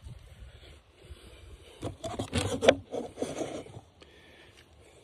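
Handling noise from the camera being picked up and repositioned: rubbing and scraping against the microphone for about two seconds in the middle, with one sharp knock partway through.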